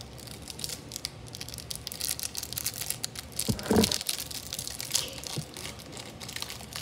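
Plastic trading-card pack wrapper being torn open and crinkled by hand, a dense crackling and rustling. A short pitched sound stands out a little past halfway.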